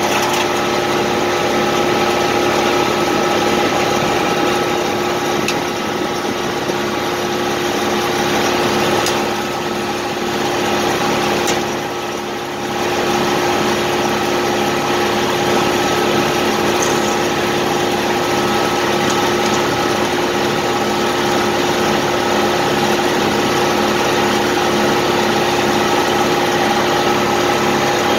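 Circular sawmill's engine running steadily at a constant speed, with several steady whining tones over it and a brief dip in level about twelve seconds in; no wood is being cut yet.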